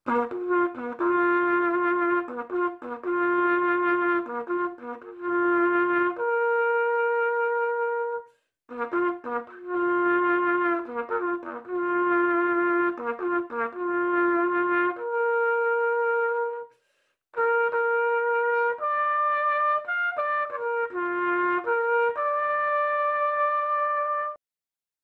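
Solo cornet playing a bugle call in three phrases, with quick repeated notes leading to long held notes and short breaks between phrases, ending on a held note a little before the end.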